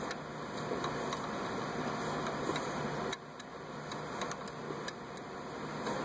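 Light, scattered metallic ticks of a line wrench working the brake line flare nut on a front brake caliper, over a steady hum and hiss that drops away about halfway through.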